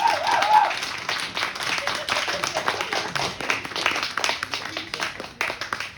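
An audience applauding, with a single voice's wavering call over the clapping in the first second; the clapping thins toward the end.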